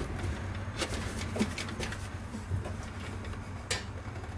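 A floor jack being pumped to raise the front strut: scattered short clicks and knocks, the clearest about a second in and near the end, over a steady low hum.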